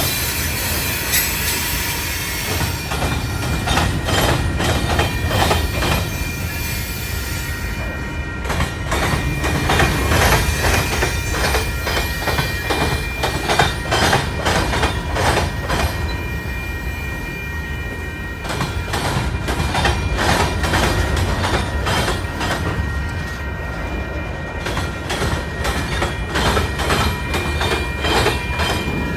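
Freight train cars (tank cars, covered hoppers, flatcars) rolling past close by with a low rumble. Their wheels clack over rail joints in bunches, under a steady high wheel squeal.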